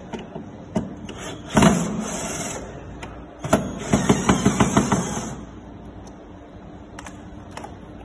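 Cordless drill-driver running in two short bursts, about a second and a half in and again from about three and a half seconds, backing out the refrigerator's door-hinge screws. The second burst carries a fast run of clicks.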